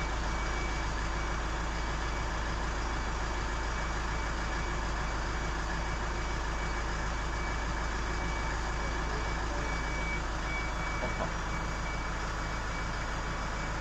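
Mobile stage truck's hydraulic system running with a steady hum, while a high-pitched warning beeper sounds repeatedly, as it does when the hydraulics move.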